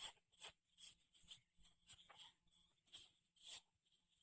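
Near silence with faint rustling and soft scrapes, about two a second, from small plastic toys being handled.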